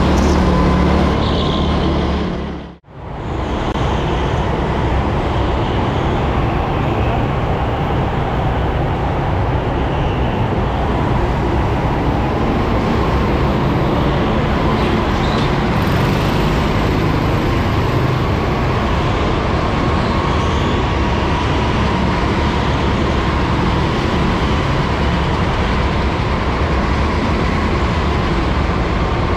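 Kart engine running flat out, heard onboard, with a faint steady whine over the engine noise. The sound dips out briefly about three seconds in, then carries on unchanged.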